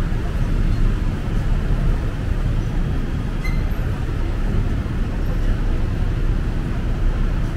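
Steady low rumble of city traffic, a continuous wash of noise with no distinct events.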